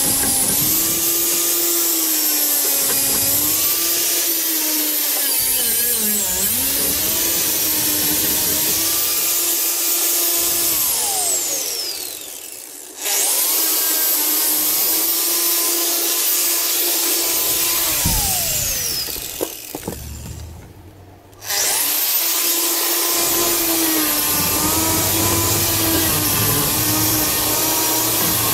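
Electric angle grinder running at a high whine and stripping rust and grease off the trolley's steel bar, its pitch wavering as the disc is pressed on. Twice it is switched off and winds down with a falling whine, then is started again at full speed.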